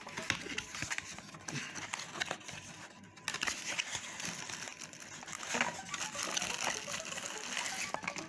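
Plastic packaging crinkling and cardboard flaps rustling as a boxed blood pressure monitor is unpacked by hand, with many small clicks and taps.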